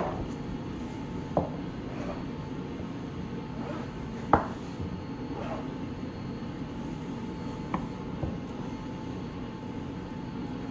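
A few scattered knocks of a knife and a rack of ribs against a plastic cutting board during trimming, the loudest about four seconds in, over a steady background hum.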